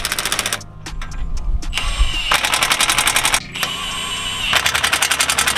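Cordless impact driver hammering in four bursts: one short burst at the start, two longer ones in the middle and one near the end, each a very rapid run of clicks. It is driving the bolts of the tie rod clamp that holds the new steering stabilizer.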